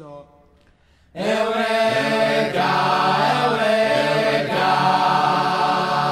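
Music: voices singing long held notes together like a choir, starting suddenly about a second in after a moment of near quiet.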